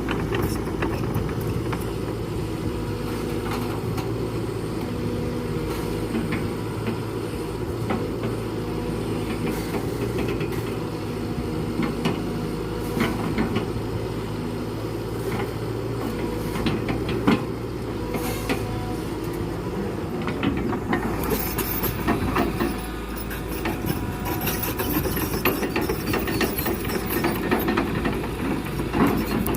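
Diesel engine of a hydraulic excavator running steadily, with scattered knocks and clatter. About two-thirds of the way through the engine note changes and a hissing clatter comes in.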